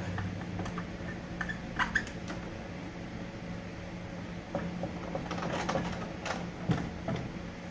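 Marker squeaking and scratching on a whiteboard in short strokes as letters are written, over a steady low hum.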